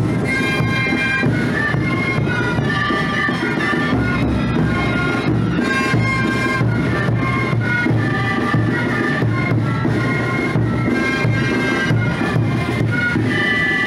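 Andean parade band music: shrill, reedy wind instruments playing a melody in held notes over a steady drum beat.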